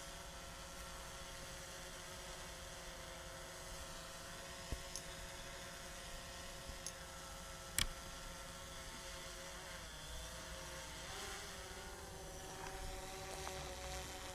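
DJI Phantom 3 Standard quadcopter's propellers, a faint steady buzz while hovering, which wavers and shifts in pitch near the end as the drone starts to fly off. Two sharp clicks about five and eight seconds in.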